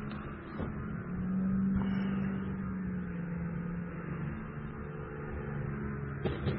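A steady low engine drone. It grows louder about a second in, and its main tone shifts lower past the middle. A few faint clicks sound over it.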